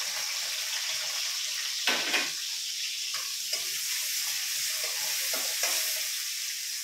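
Chopped onion sizzling in hot oil in a steel kadai, a steady frying hiss, with a spatula scraping through it in several short strokes.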